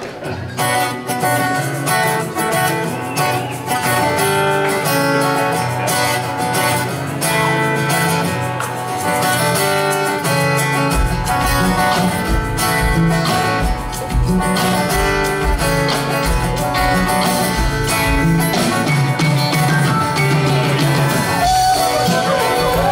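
Live band playing the instrumental opening of a rock song: strummed guitars under a steady melody, with the bass coming in about eleven seconds in.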